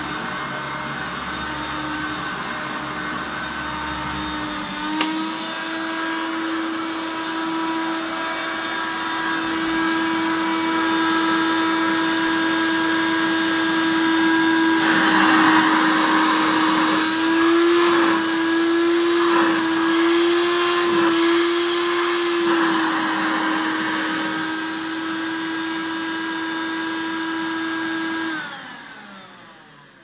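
Hoover Turbomaster U4362 upright vacuum cleaner running with a steady motor hum. About five seconds in a click comes and the pitch steps up a little; in the middle a louder rush of air comes in and the pitch wavers. Near the end it is switched off and the motor winds down to a stop.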